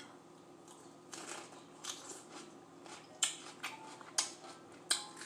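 Raw mini sweet peppers being bitten and chewed: a series of sharp, crisp crunches, about six, coming closer together and louder near the end.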